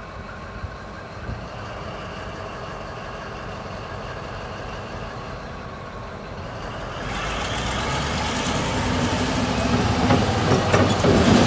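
Cat D11R dozer's Cat 3508B V8 diesel engine idling, then throttled up about seven seconds in: it gets louder and a whine rises steadily in pitch as the engine speeds up, sending up black exhaust smoke.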